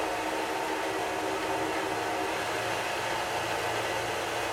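Small machine lathe running steadily, its motor and drive giving an even hum with several held tones.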